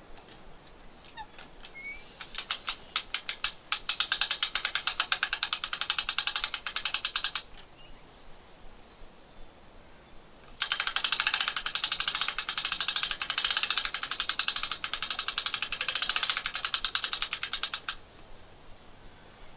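A hand winch's ratchet clicking rapidly as it is cranked, hoisting the shell of a top-hat raku kiln. The clicks start sparse and quicken, run for about four seconds, stop for about three, then run again for about seven seconds.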